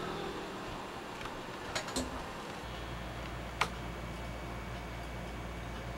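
Quiet room tone with a few short, sharp clicks, and a low steady hum that sets in about two and a half seconds in.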